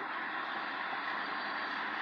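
Steady, even noise of a moving vehicle, with no horn sounding.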